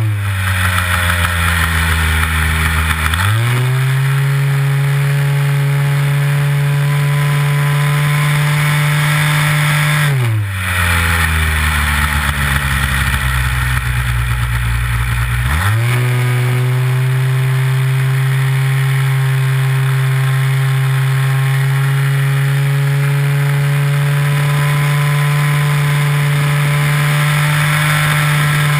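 Nitro glow engine of a Big Stik 60 RC airplane in flight, heard onboard over wind rush. It runs throttled back at the start, opens up to full power about three seconds in, is throttled back again around ten seconds, then opens up to a steady full-power run about five seconds later.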